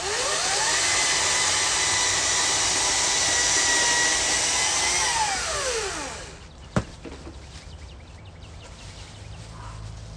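Power saw motor spinning up with a rising whine, running steadily for about four seconds, then winding down. A single sharp click follows about a second after it stops.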